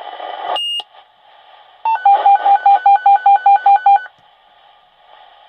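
Fire dispatch radio channel: a short high beep as one transmission ends, then over radio hiss a rapid series of about eleven alert beeps, roughly five a second, lasting about two seconds, the tones sent before the next dispatch is read out.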